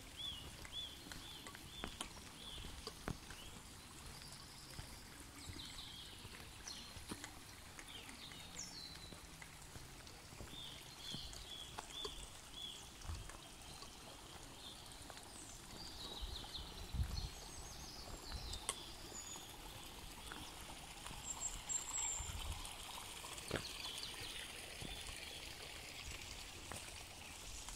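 Small birds chirping in bare woodland: runs of short, quick chirps a few to the second, at the start and again through the middle and later part, with scattered single calls. Under them a steady faint rushing hiss, and now and then a soft knock.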